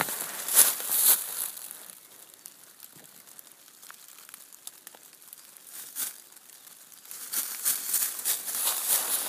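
Dry fallen leaves crunching and rustling as a dog and its handler move through the leaf litter and brush. The rustling is loud in the first second or so, dies down, and picks up again about seven seconds in.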